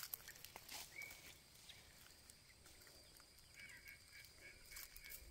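Near silence outdoors: a few faint rustles and snaps as blackberries are picked by hand from the brambles. A bird calls in a quick run of short, repeated high notes over the last second and a half.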